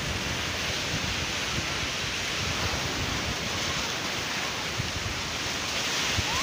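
Sea waves breaking and washing onto the shore, a steady rushing noise, with wind rumbling on the microphone.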